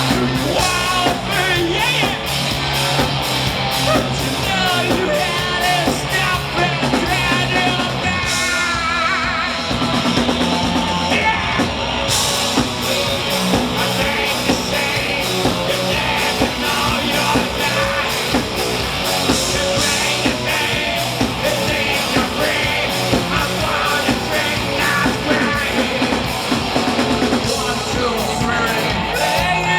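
A live musical-theatre song: a singer's voice over a loud rock-style band, with steady drums and amplified instruments.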